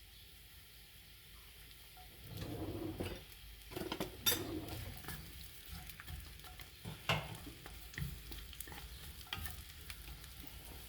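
Mushrooms and onions sizzling in oil in a frying pan while being stirred, with a louder stir about two seconds in and scattered clicks of the utensil against the pan.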